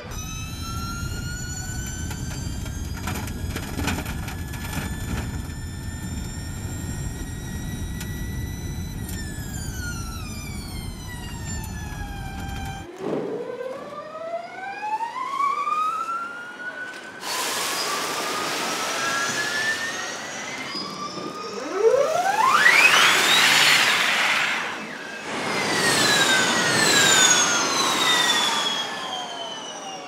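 Gen2 Formula E electric race cars with their motors whining. First a car pulls away, its whine rising steadily and then falling as it slows, over a low tyre rumble. After a cut about halfway, cars pass on a wet track with rising and falling whines over the hiss of tyre spray; the loudest is a steep rising sweep about three quarters of the way in.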